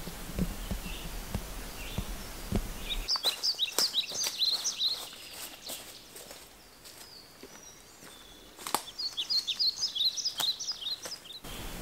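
Footsteps on a forest trail for the first few seconds, then a songbird singing two phrases, each a rapid run of high chirps lasting about two seconds: one a few seconds in and one near the end.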